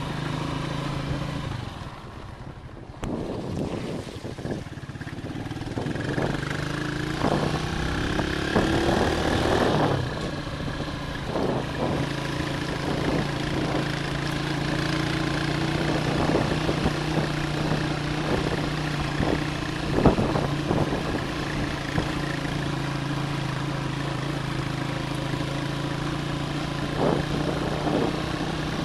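Motorcycle engine running steadily under way, dropping briefly about two seconds in before picking up again, with scattered knocks and rattles.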